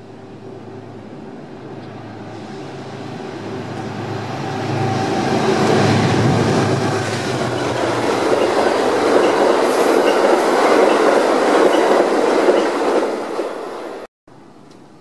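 Amtrak passenger train of stainless-steel Amfleet coaches passing close by at speed. The rumble and wheel clatter on the rails build as it approaches and stay loud for several seconds as the cars go by. The sound eases off, then cuts off suddenly shortly before the end.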